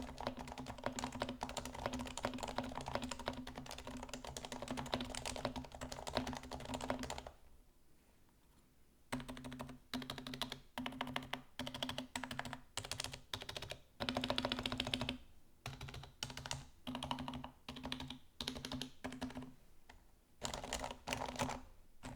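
HHKB Hybrid keyboard with Topre switches silenced with Deskeys No. 3 and housings and stabilizers lubed with 205g0, being typed on. Fast continuous typing, a pause of about two seconds, then slower runs of separate keystrokes, with quicker typing again near the end.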